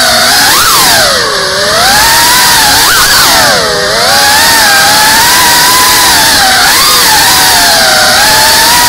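GEPRC Cinelog 35 cinewhoop drone's motors and ducted propellers whining, heard from the drone itself. The pitch swings with the throttle, dropping twice (about a second and a half in and about four seconds in) as the motors ease off, then climbing again.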